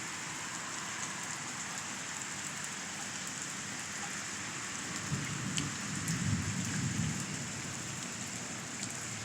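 Steady heavy rain falling and pattering on surfaces, with a low rumble of thunder swelling about five seconds in and fading out a couple of seconds later.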